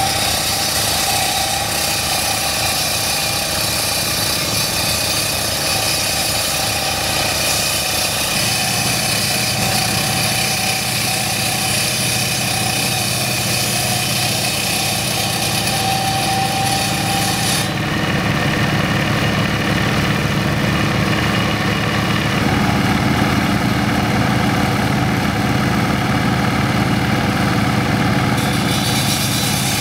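Kubota single-cylinder diesel engine running steadily on a walk-behind concrete cutter, with a steady hiss above it that drops away abruptly about 18 seconds in.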